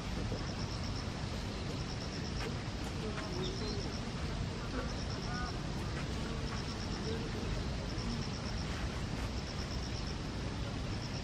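An insect chirps in short, high-pitched pulsed trills that repeat about every one and a half seconds over a steady background hiss. Faint, scattered bird chirps come through now and then.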